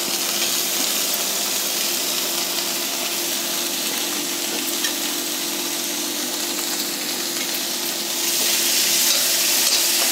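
Paneer stuffing sizzling steadily in oil in a steel kadai. About eight seconds in it gets louder as a metal masher presses and scrapes the mixture against the pan.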